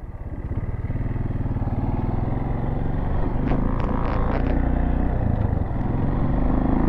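Motorcycle engine pulling away and accelerating, rising over the first second and then running steadily, with a brief dip near six seconds. A few light clicks and rattles come about three and a half to four and a half seconds in.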